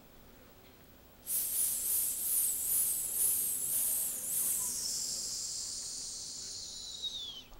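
A loud, high hiss starts suddenly about a second in, wavering for the first few seconds, then thins to a steadier high hiss that falls in pitch before cutting off near the end.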